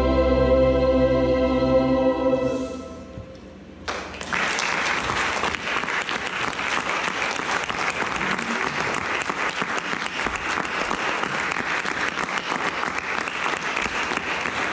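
The last held chord of a choir song with solo violin fades out about three seconds in. About a second later the audience breaks into steady applause.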